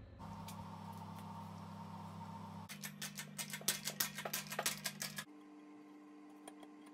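Workshop clips cut together: a steady low hum, with a run of sharp clicks and taps of metal pump parts being handled and pressed in the middle. The hum changes abruptly at each cut.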